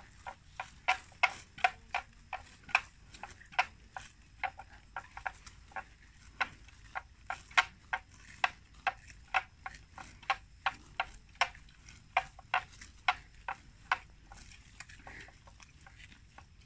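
Water buffalo cropping grass while grazing: a steady run of crisp tearing snaps as the grass is ripped off, about two or three a second, dying away about 14 seconds in.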